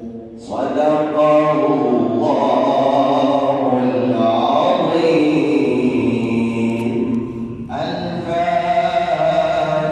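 A man reciting the Quran in a melodic chant, holding long drawn-out notes that glide up and down. There is a short break about three-quarters of the way through, then the recitation goes on.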